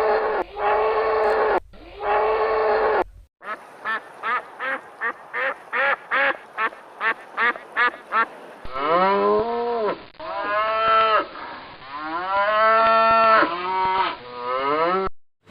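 Farm animals calling in three edited clips. First two long steady calls, then about 3 seconds in a quick run of short repeated calls like duck quacks, two to three a second. From about 9 seconds in, several drawn-out calls rising and falling in pitch, like cattle mooing.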